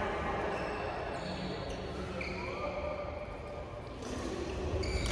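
Badminton players' court shoes squeaking on the hall floor, several short high squeaks, some sliding in pitch, over low thuds of footwork, echoing in a large sports hall.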